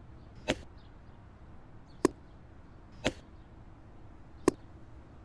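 Four short, sharp clicks spaced irregularly a second or so apart, over faint background noise.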